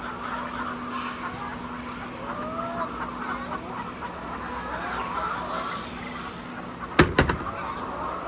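A flock of laying hens clucking and calling continuously over a steady hum. Near the end comes a sharp double knock, the loudest sound.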